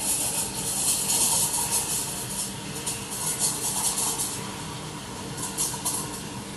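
Espresso machine steam wand hissing into milk, with irregular pops as air is drawn in to foam the milk. The hiss eases after about four seconds, with a few more pops near the end.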